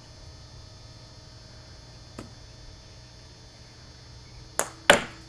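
A small child's golf club striking a ball off a hitting mat: two sharp cracks about a third of a second apart near the end, the second the louder, after a faint tap about two seconds in.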